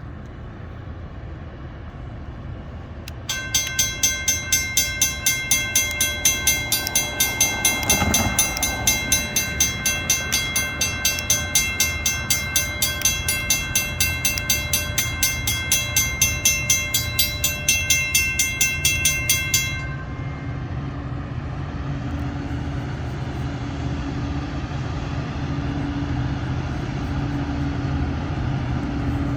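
A bell ringing about twice a second for roughly sixteen seconds over the low rumble of approaching EMD diesel locomotives. After the bell stops, the locomotives' engine drone grows steadily louder as the train nears.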